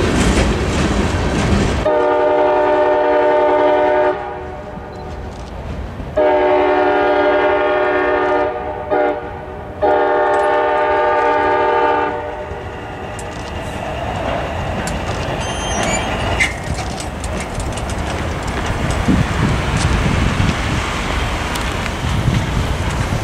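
Freight cars rolling over the crossing, then a freight locomotive's air horn sounding the grade-crossing pattern: long, long, short, long. It is followed by a quieter rumble as the train moves away.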